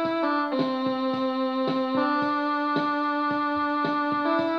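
Electronic home keyboard playing a slow tune in a piano-like voice: held chords and melody notes changing every half second or so, over regular soft beats just under two a second.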